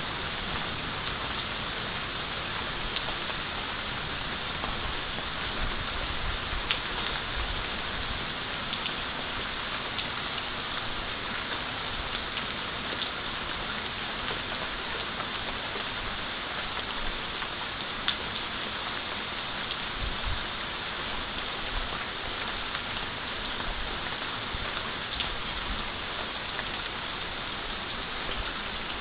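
Heavy rain falling steadily in a thunderstorm: a constant hiss with scattered sharp ticks.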